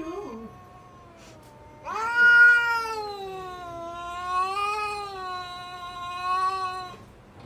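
Domestic cat yowling: a short call at the very start, then one long, drawn-out call of about five seconds from about two seconds in, wavering up and down in pitch.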